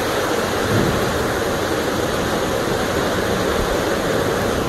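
A torrent of muddy floodwater rushing and churning down a street: a steady, loud rush of water with no breaks.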